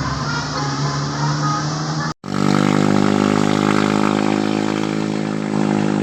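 A large diesel bus engine runs at a steady, even pitch after an abrupt cut about two seconds in. Before the cut there is vehicle noise with a run of short, high repeated tones.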